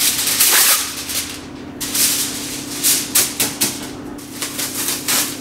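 Sheet of Reynolds Wrap aluminium foil pulled from its box and crinkled, followed by a run of short sharp crackles and ticks as the foil is handled and spread out.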